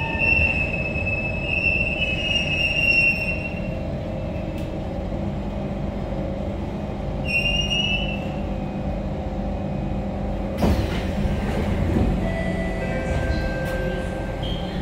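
Kawasaki Heavy Industries C151 metro train running on the track with a steady rumble. High-pitched wheel squeal sounds in the first three seconds and again briefly around seven seconds in. A single sharp knock comes about ten and a half seconds in.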